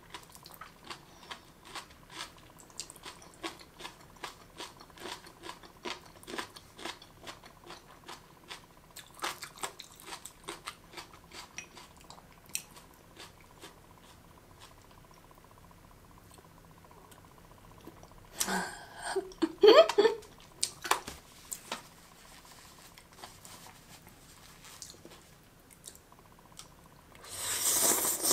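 Close-up crunching and chewing of marinated jellyfish strips: crisp clicks come several times a second, then thin out. There are louder bursts of mouth noise about two-thirds of the way in, and again near the end as the next mouthful of strands goes in.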